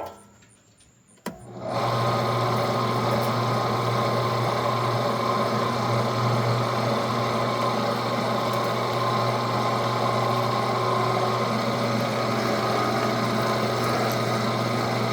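A Weston No. 32 electric meat grinder's 1.5-horsepower motor is switched on with a click a little over a second in. It then runs at a steady hum.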